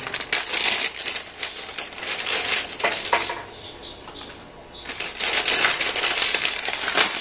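Plastic instant-noodle wrapper crinkling as a dried ramen block is pulled from it and dropped into a pan of simmering water, in two spells with a quieter moment in the middle.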